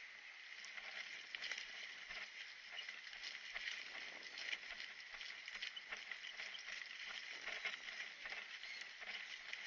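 Irregular rustling and light crackling, like movement through dry brush and leaves.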